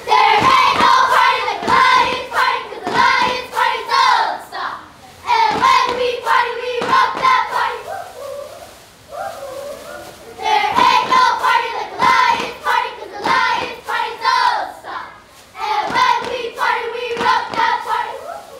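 A group of children singing together in unison, with hand claps keeping the beat. They sing two long phrases with a pause of about two seconds between them.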